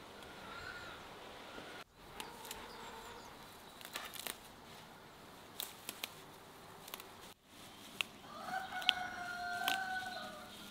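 A rooster crowing once near the end, a long drawn-out call. Before it, scattered light snaps of herb stems being picked by hand.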